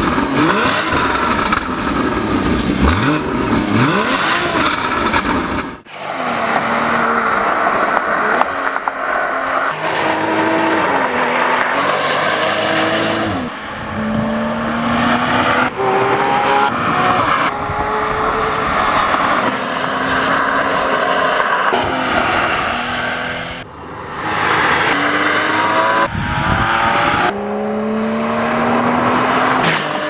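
Porsche Boxster S 3.4-litre flat-six engine and exhaust revving and accelerating hard, its pitch climbing through each gear and dropping back at the shifts. The sound is broken several times by sudden cuts.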